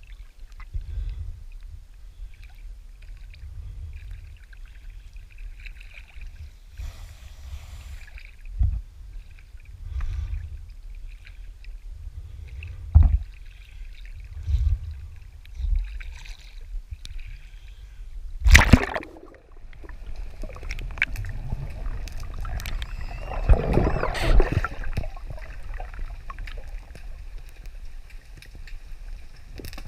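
Water sloshing and splashing against a sailing yacht's hull as it moves through choppy sea, over a low wind rumble on the microphone, with a few sharp knocks, the loudest about two-thirds of the way through.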